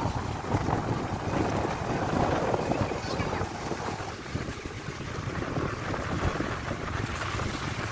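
Sea surf breaking and washing over a low rocky shelf at the shoreline, with wind buffeting the microphone. The wash eases off about halfway through.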